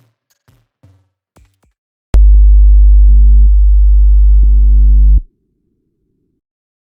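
Recorded substation bus voltage played back as sound: a loud, steady low mains hum with buzzy overtones starts about two seconds in, holds for about three seconds, then cuts off abruptly as the bus is de-energized by the short circuit. A few faint ticks come before it.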